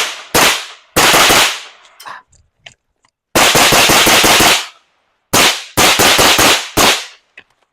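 Strings of rapid gunfire: short bursts of a few shots and one longer string of about a dozen shots a little after three seconds in.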